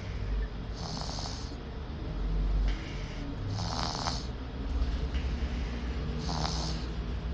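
Snoring in sleep: three snores, about two and a half to three seconds apart, each with a buzzing flutter.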